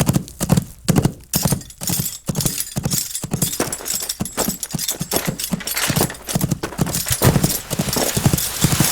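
Horse hooves galloping: a fast, continuous run of heavy hoofbeats.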